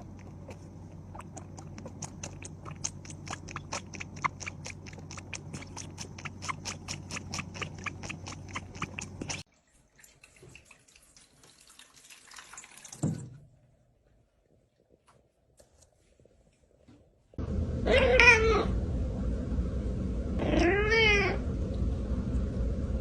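Cat meowing loudly twice, long wavering calls near the end. Earlier, a run of quick clicks, about three or four a second, stops abruptly after about nine seconds.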